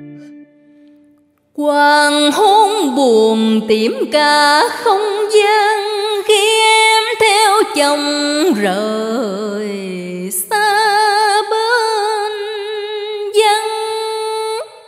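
A woman's solo singing voice in Vietnamese cải lương (vọng cổ) style: long held notes with wide vibrato and ornamented slides, in several phrases. It enters about a second and a half in, after a held instrumental note fades away, and stops just before the end.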